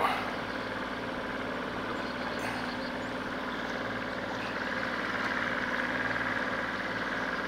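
Fishing boat's motor running steadily as the boat cruises along, growing slightly louder past the middle.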